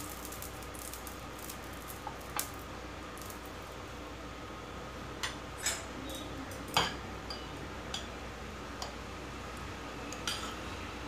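A handful of light, separate clinks and taps of kitchen utensils and dishes, about seven in all and the sharpest a little past the middle, over a steady faint background hiss.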